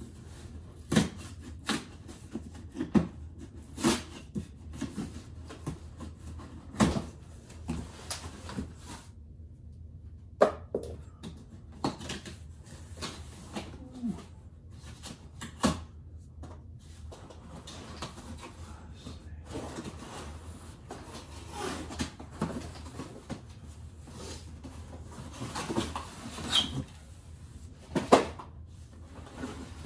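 A cardboard shipping box of bicycle wheels being opened and unpacked by hand: irregular knocks and thumps of cardboard flaps and contents, with rustling of packing material between them.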